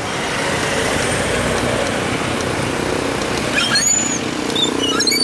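Steady street traffic noise from vehicles, with a few short high chirps about four seconds in and again near the end.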